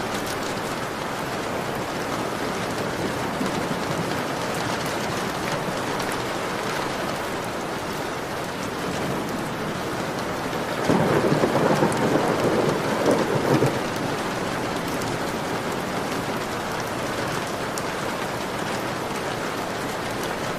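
Heavy rain pattering steadily on a window pane. About eleven seconds in, a louder rumble of thunder rises over the rain for about three seconds, then cuts off.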